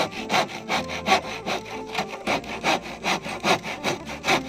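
Hand saw cutting through a wooden boat plank in quick, even back-and-forth strokes, about three to four a second.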